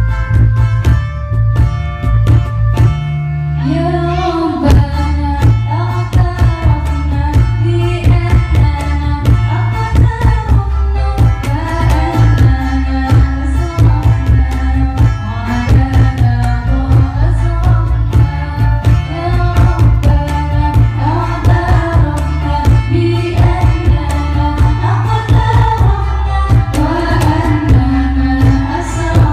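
A gambus group performing a sholawat song, with a female voice singing the melody over keyboard, bass and hand drums keeping a steady beat. The singing comes in about three and a half seconds in, after a short instrumental passage.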